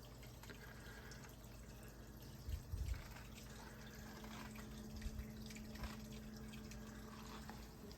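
Quiet trickle and drip of water running through a Bean Animal aquarium overflow into the sump, with a steady low hum, while only the return pump runs and the gyre pumps are off: the overflow is draining quietly. A couple of soft low thumps come a little under three seconds in.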